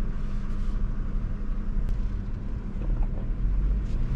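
2022 Nissan Frontier Pro-4X's 3.8-litre V6 running at low revs in four-low with the rear locker engaged, starting to crawl up a trail hill: a steady low drone with a few faint ticks.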